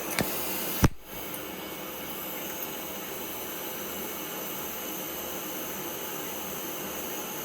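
Steady machine-like hiss, with a sharp click about a second in.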